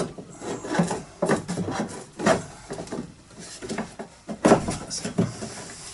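Timber cornice panel being pushed onto Button Fix clips: a series of irregular wooden knocks and taps, the loudest about two and a half seconds in and again around four and a half seconds in.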